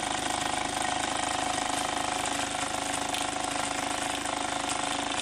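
Mamod/Hobbies SE3 toy steam engine running steadily under steam: the rapid, even beat of its oscillating cylinder exhausting, with the light mechanical whir of its gears and flywheel.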